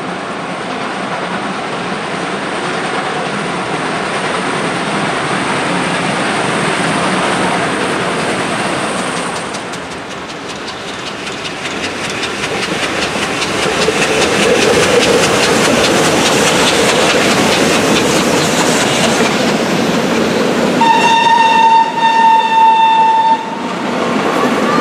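A train passing close by, its wheels and running gear giving a fast, even clatter that swells partway through. Near the end a whistle sounds on one steady pitch for about two seconds, with a short break in it.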